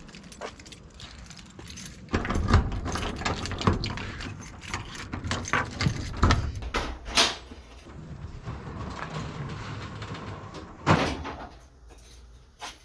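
Irregular knocks, clunks and rattles of things being handled in a small room, with a heavier thump a little after two seconds and another near eleven seconds.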